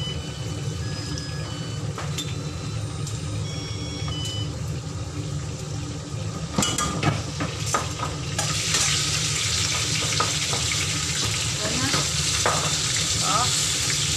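Pot of sea cucumber braising on the stove. A few clinks of spoon and bottle against the stainless steel pot a little past the middle, then a loud, steady sizzling hiss from about eight seconds in, over a constant low hum.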